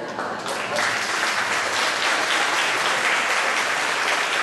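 Audience applauding, swelling up over the first second and then holding steady.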